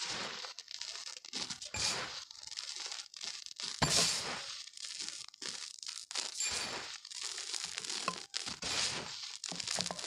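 Chalk being crushed and crumbled: a dense, irregular run of dry crunches, the loudest about four seconds in.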